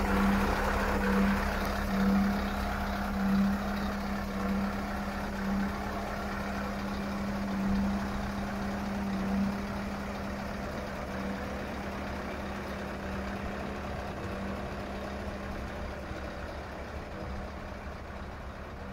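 Scania R164.580's V8 diesel idling with a steady low hum that swells about once a second in the first half, slowly growing fainter.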